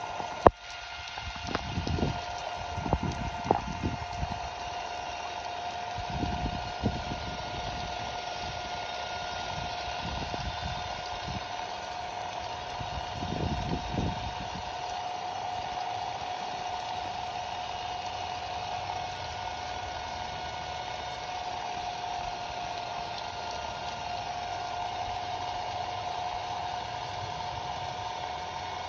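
Ryobi cordless impact driver running free with no load, a steady electric motor whine, while still working under a water spray on a bare, uncovered battery board. Water spray hisses throughout, and a few irregular low thumps come in the first half, the sharpest about half a second in.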